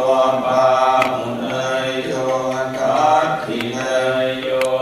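Thai Buddhist temple chanting (tham wat): voices reciting scripture together in unison on a steady, near-monotone pitch, drawn-out syllables shifting every second or two.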